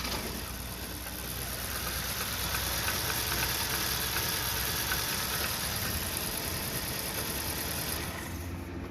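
A 2014 Kia Rio's engine running steadily at idle just after starting. It runs only because the engine control relay's trigger wire has been grounded by hand, which shows the relay is sound and the fault lies in its command wire from the engine computer.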